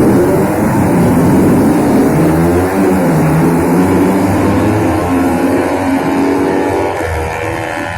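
Racing motorcycle engines being warmed up, revved over and over so their pitch rises and falls, with more than one engine running at once. The sound eases off near the end.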